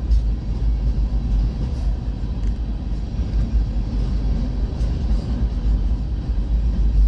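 Long freight train's cars rolling past a grade crossing: a steady, heavy low rumble.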